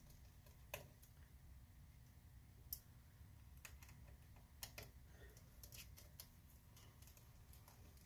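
Faint, scattered light clicks and ticks, about ten of them, from a small Phillips screwdriver working the tiny screws out of a laptop's bottom cover, over a low steady room hum.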